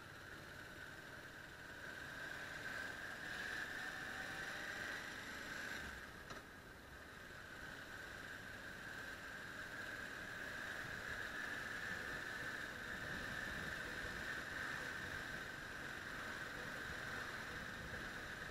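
Muffled noise of a Yamaha TDM motorcycle on the move, heard through an action camera's sealed waterproof case: a steady hiss of wind and road with engine noise underneath, dipping briefly about six seconds in.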